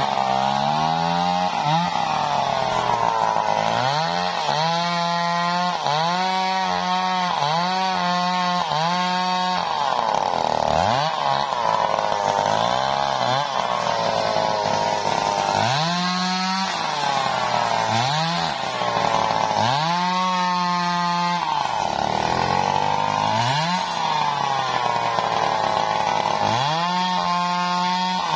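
Stihl MS 381 two-stroke chainsaw cutting through a large teak log, its engine pitch climbing to full revs and sagging again over and over.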